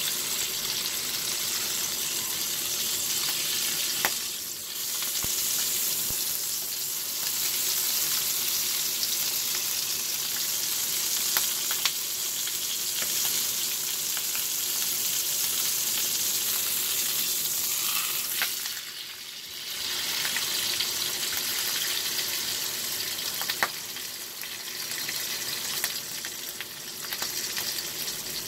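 Sous-vide ribeye steak frying in butter in a skillet: a steady sizzle that dips briefly a little past the middle, with a few sharp clicks of metal tongs and a knife against the pan.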